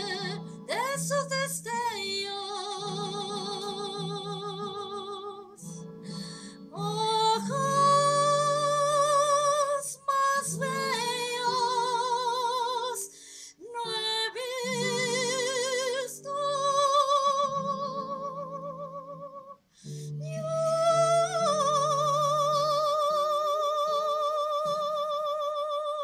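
A woman singing through a microphone, holding long notes with a wide, regular vibrato over an instrumental accompaniment, with short pauses between phrases.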